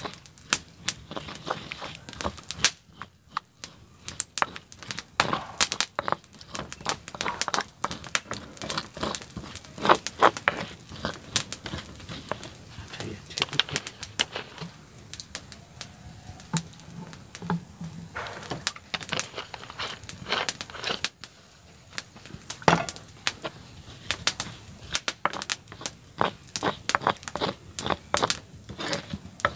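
A pestle grinding a chilli paste in a terracotta cobek mortar, with irregular scrapes and sharp taps against the clay.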